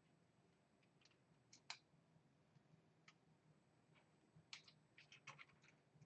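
Faint, scattered clicks and light taps of a small screwdriver and screw against a 3D-printed plastic part as a screw is driven in: a few isolated clicks, then a quick run of them about two thirds of the way through.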